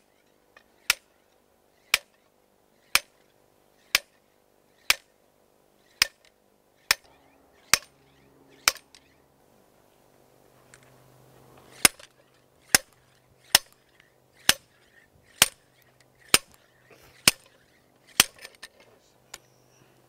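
The steel sliding hammer of a dynamic cone penetrometer is lifted and struck up against the handle again and again, about once a second, in sharp metallic clanks. The upward blows knock the drive rod and cone back out of the soil. The strikes pause for about three seconds midway and then carry on at the same pace.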